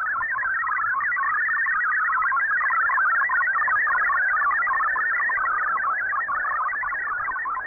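Shortwave radio MFSK digital text signal received off the air: a fast, steady stream of short beeping tones hopping about between roughly 1 and 2 kHz, the data being decoded as text.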